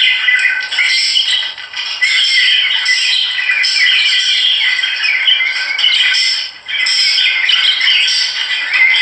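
A flock of small birds chirping and squawking together: a dense, continuous, high-pitched chatter of many overlapping calls that briefly drops about two-thirds of the way through.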